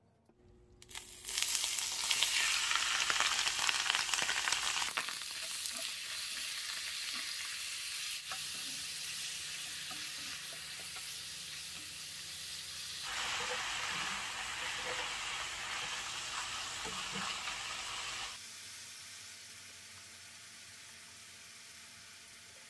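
Soaked konjac noodles sizzling in hot cooking oil in a frying pan, stirred with chopsticks. The sizzle starts suddenly about a second in, swells twice, and drops to a quieter level about 18 seconds in.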